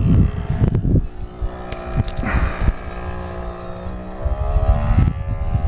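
Radio-controlled model aircraft flying overhead, its motor giving a steady drone whose pitch wavers and rises a little about four seconds in.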